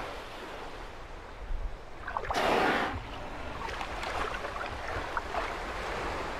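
Seawater sloshing in a lead between sea-ice floes, with one loud half-second rush of noise about two and a half seconds in.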